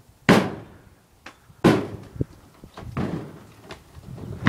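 Wood-and-board bangs from blows on an old wooden chicken coop as its door is being smashed off: two heavy bangs about a second and a half apart, then a few lighter knocks.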